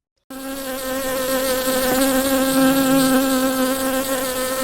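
A bee buzzing: a steady, continuous buzz that starts abruptly a moment in.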